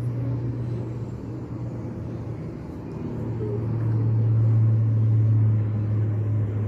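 A low steady hum that grows louder about three seconds in and eases off near the end.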